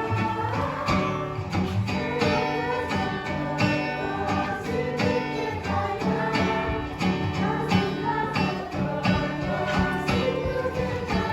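Background music: a song with singing and guitar over a steady beat.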